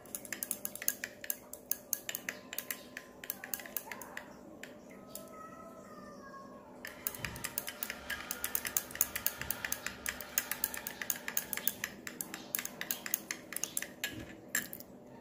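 Thin metal stirring rod clinking rapidly against the inside of a beaker as liquid is stirred briskly. A first run of clinks stops for about two seconds midway, then a longer, faster run follows, ending just before the close.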